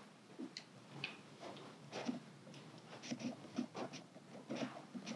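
Faint footsteps walking at about two steps a second, soft short knocks in a quiet room.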